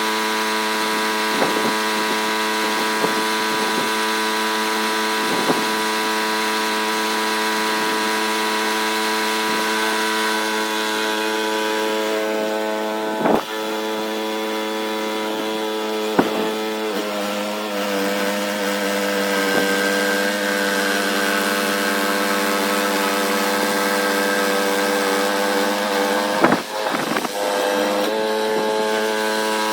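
Small gasoline snowblower engine running at a steady high speed. It has a few sharp knocks and a brief dip in the sound near the end.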